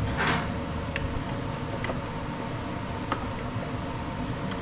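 Light, scattered metallic clicks and ticks from fingers working a self-propelled mower's drive cable and spring into place, over a steady background hum. A short hiss comes near the start.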